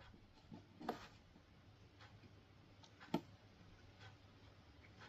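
Near silence with room hiss, broken by a few faint short clicks or taps. The clearest comes about three seconds in.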